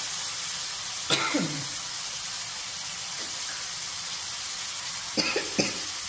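Chopped chilies and tomatoes sizzling steadily in a wok. A person coughs about a second in and twice in quick succession near the end, irritated by the pungent fumes of the frying chili.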